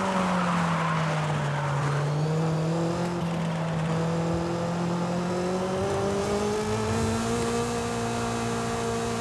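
Honda S2000's four-cylinder engine running at high revs. Its note dips over the first two seconds and then climbs slowly and steadily, with a hiss at the start.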